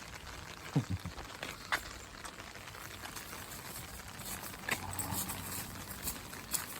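Steady rain hissing, with scattered single drops ticking at irregular moments.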